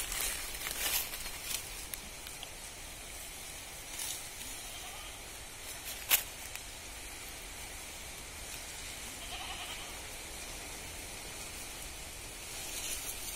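Goats biting and tearing at the rind of jackfruit hanging from a tree: scattered crunching clicks over a steady low background, with one sharp snap about six seconds in.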